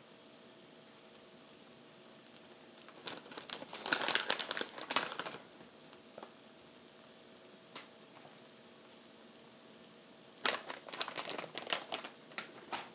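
Plastic pouch of shredded cheese crinkling and rustling in two spells, about three to five seconds in and again near the end, as it is handled and cheese is pinched out of it.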